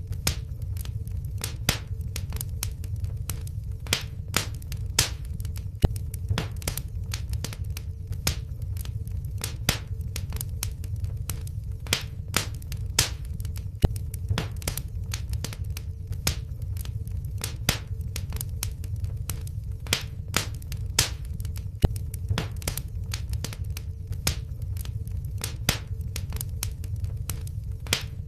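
Wood fire in a fireplace crackling, with many irregular snaps and the odd louder pop over a steady low rumble of flames.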